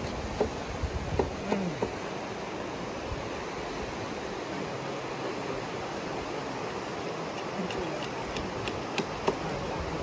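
Steady rushing of a river, with a few light clicks and knocks about a second in and again near the end.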